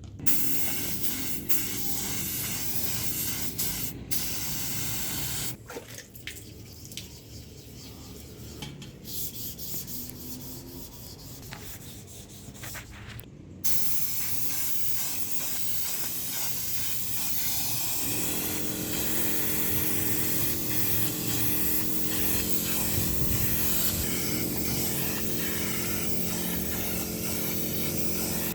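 Spray hissing in long stretches: a first spell of about five seconds, a quieter gap with a few clicks, then a long steady spell. About two-thirds of the way through, a steady low hum starts under it.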